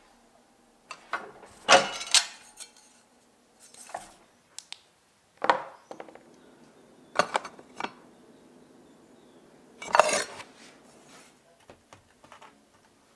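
Sharp metallic clanks and clinks at irregular intervals, the loudest about two seconds in and again about ten seconds in. Small metal parts and tools are being handled and set down.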